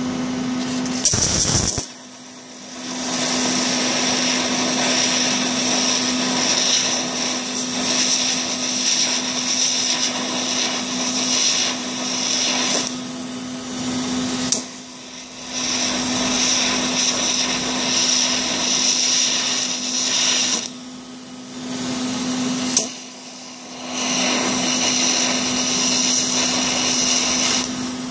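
TIG welding arc hissing steadily over a steel fuel-rail fitting, breaking off briefly several times as the torch is lifted and restarted. This is a smoothing pass over a finished weld, reheating it red hot to even out the bead and check it is fully fused.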